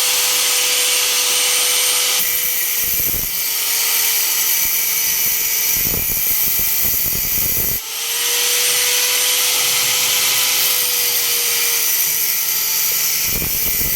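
Electric arc welding: a loud, steady sizzling hiss from the arc, broken off for a moment about eight seconds in and then struck again.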